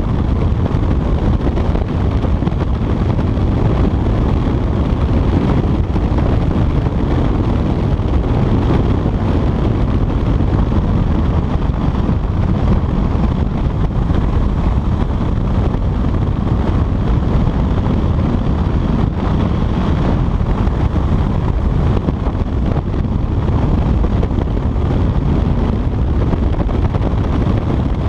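Wind buffeting a chest-mounted action camera's microphone on a motorcycle at riding speed, a steady low rumble with the engine running underneath.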